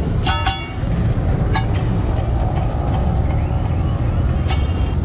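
Steady low engine rumble, with a few short sharp clinks.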